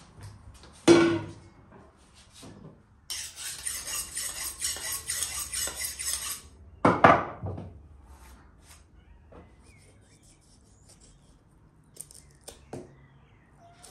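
Kitchen work with a metal bowl and a knife: the bowl clanks and rings twice, about a second in and about seven seconds in. Between the clanks comes about three seconds of dense, steady metallic scraping. A few light knife clicks follow near the end as a raw chicken is cut on a wooden board.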